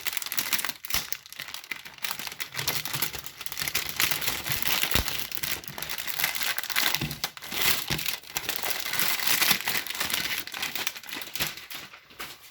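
Packaging crinkling and rustling as a new laptop is unwrapped from its protective wrap, the noise dying away near the end.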